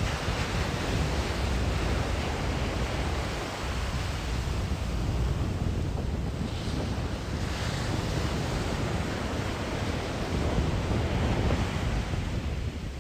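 Strong wind buffeting the microphone with a low rumble, over ocean surf breaking and washing ashore, swelling a little about halfway through.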